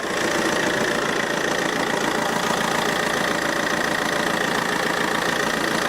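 Car engine idling steadily with the air conditioning running on full, coldest setting and maximum fan, while the system is low on refrigerant and blowing only lukewarm air. A steady high whine runs over the engine noise.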